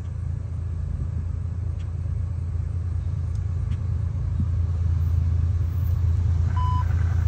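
A low, steady engine rumble that grows gradually louder, with a short beep near the end.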